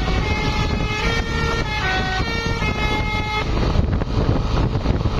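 Tour bus's multi-tone 'telolet' horn playing a quick tune of stepping notes, cutting off about three and a half seconds in, over a steady low rumble.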